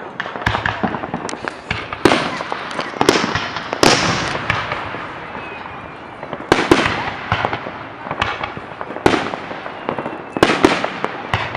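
Fireworks display: aerial shells bursting in a series of loud bangs at irregular intervals of one to three seconds, each bang trailing off as it echoes.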